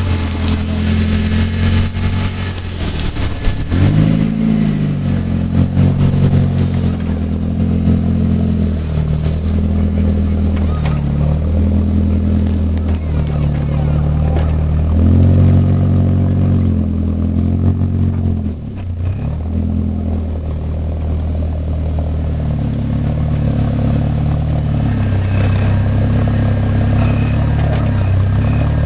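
Rock crawler's engine revving up and down in repeated throttle bursts, its pitch rising and falling every second or two.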